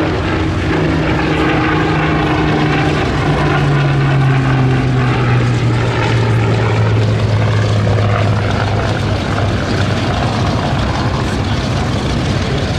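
Rolls-Royce Merlin piston engines of a Second World War warbird passing by, a steady propeller drone whose pitch falls slowly as the aircraft goes past, loudest about four seconds in.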